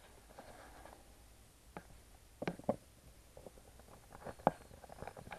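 Handling of the wiring and connectors in a plastic battery box: scattered light clicks and knocks, the loudest about two and a half and four and a half seconds in.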